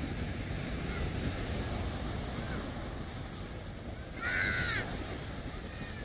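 Atlantic surf breaking and washing up the beach, with wind buffeting the phone's microphone. A brief high-pitched call rises above it about four seconds in.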